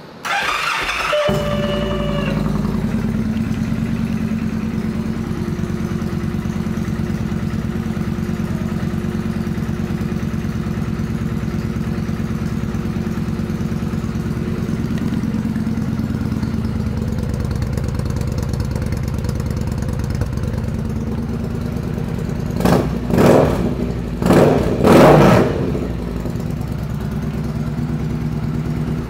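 A 2013 Victory Judge's 106-cubic-inch V-twin is started: a brief crank with the starter whining, then it catches and idles steadily through an exhaust with the baffles removed. Near the end the throttle is blipped twice, two short revs about two seconds apart, before the engine is shut off.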